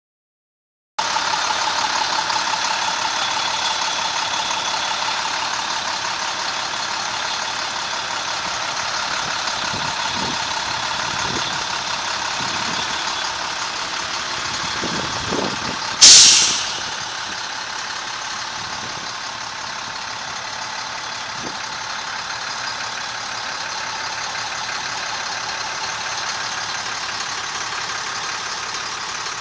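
Truck diesel engine, the International 4300's DT466, idling steadily. About halfway through comes one sudden, loud burst of hissing air that fades within half a second.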